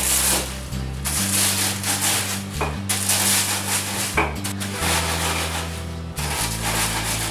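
Rolling pin crushing cornflakes inside a plastic bag on a wooden board: repeated strokes of crunching and rustling, each about a second long. Background music with a low bass line plays underneath.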